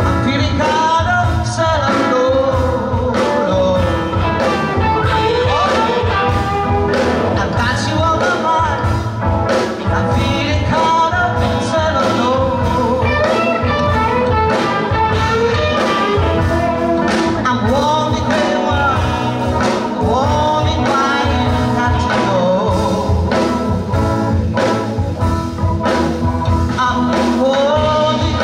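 Live band playing a slow blues number: a woman singing with a saxophone, over electric guitar, bass guitar, keyboard and drums.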